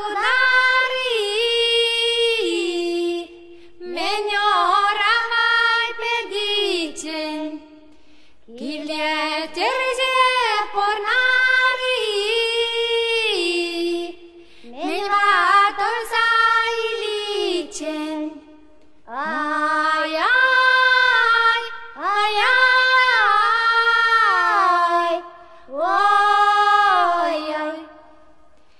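Song soundtrack: a high voice singing slow, drawn-out phrases with gliding pitch, with a short break between phrases.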